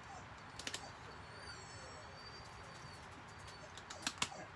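Quiet room tone with a few light clicks and taps as a small plastic spice shaker is handled and its cap worked, once near the start and a quick cluster near the end.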